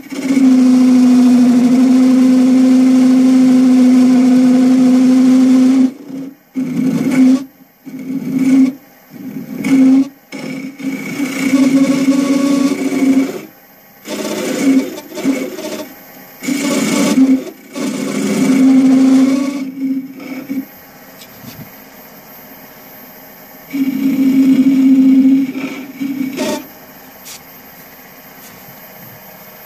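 Wood lathe spinning a bowl blank while a hand-held turning tool cuts it: a loud, pitched hum from the cut, held for about six seconds, then in shorter on-and-off passes, with one more pass near the end. Between passes the lathe runs quietly with the tool off the wood.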